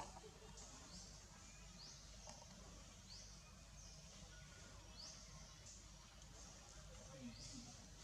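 Faint outdoor ambience: a short, high, rising buzz repeating roughly once a second over a low background rumble.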